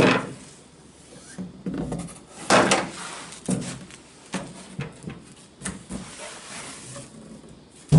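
Cardboard and bubble wrap rustling and scraping as a bubble-wrapped 3D printer in a metal frame is lifted out of its cardboard box and set down on a table, with a run of short scrapes and knocks; the loudest comes about two and a half seconds in, and a sharp thump lands at the very end.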